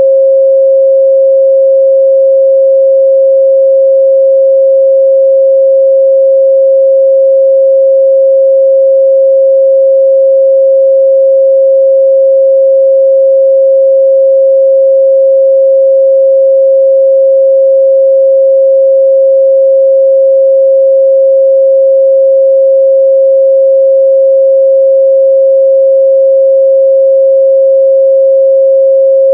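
Pure 538 Hz sine-wave test tone, held steady and loud at one pitch with no change.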